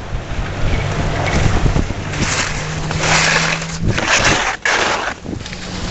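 Wind buffeting the microphone of a camera carried by a skier moving downhill, with skis hissing and scraping over the groomed snow in several loud bursts from about two seconds in.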